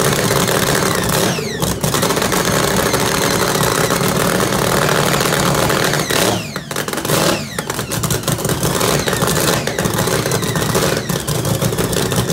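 Supercharged V8 of a drag boat idling with a loud, choppy lope, its note dropping off briefly twice a little past the middle.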